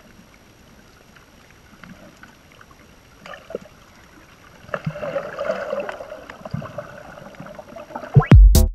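Faint, muffled underwater ambience with scattered small clicks, swelling into louder rushing water noise from about five seconds in. Loud electronic dance music with a heavy beat cuts in near the end.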